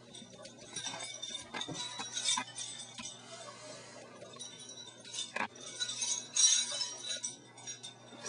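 Light metallic jingling and clinking in two bursts, one about a second in and another past the middle, with a few sharp clicks, over a steady low hum.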